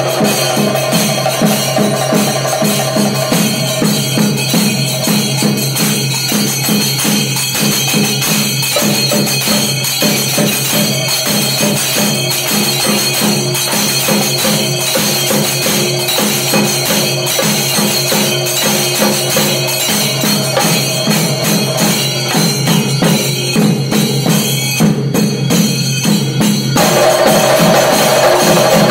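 Chenda melam played in Tripuda tala: several chenda drums beaten with sticks in rapid, dense strokes over the clash of ilathalam hand cymbals. It grows a little louder near the end.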